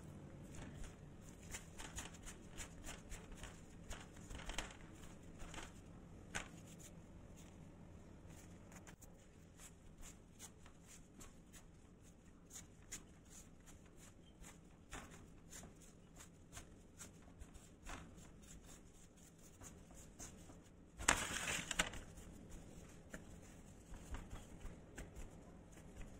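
Hands tossing thin beef slices in flour on a metal tray: faint soft rustles and small taps, with one louder rustling burst lasting about a second late on.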